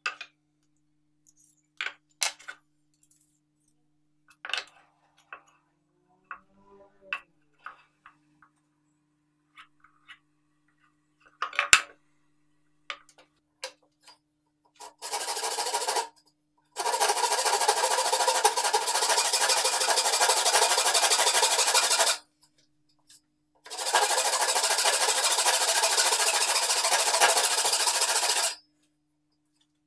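Hand backsaw cutting through a stack of plywood discs held in a bench vise, in steady back-and-forth strokes. The sawing runs in two long stretches with a short pause between them. Before the sawing there are a few light clicks and taps of handling and pencil marking.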